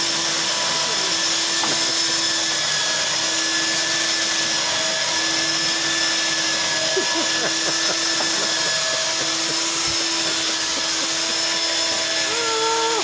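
Electric Makita belt sander running steadily as it sands a wooden tabletop: a constant motor hum with a hissing grind from the belt on the wood.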